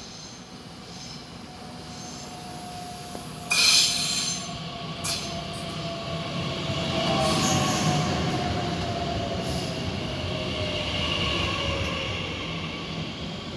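DB Regio Bombardier Talent 2 electric multiple unit pulling into the platform and braking to a stop, its rumble underlaid by a slowly falling electric whine as it slows. A brief loud burst of noise comes about three and a half seconds in, and a high brake squeal near the end.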